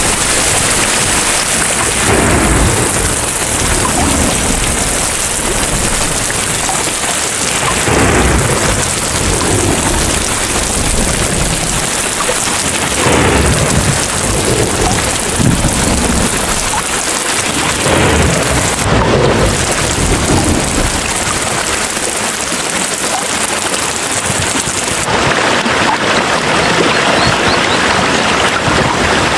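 Heavy rain falling steadily, with low rolling thunder swelling again and again every few seconds. The rain's hiss changes abruptly near the end.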